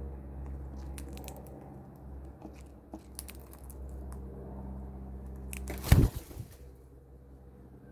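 A parrot biting and crunching its food, with scattered small crunches and tearing sounds over a steady low hum. About six seconds in there is a sudden loud noise lasting about half a second.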